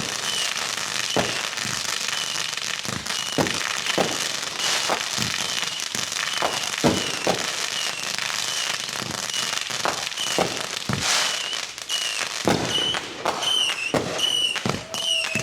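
Consumer fireworks going off in a continuous barrage: sharp bangs every half-second to a second over a steady crackle.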